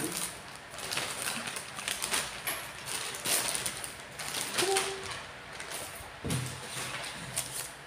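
Plastic mailer bags crinkling and rustling irregularly as they are pulled open and handled.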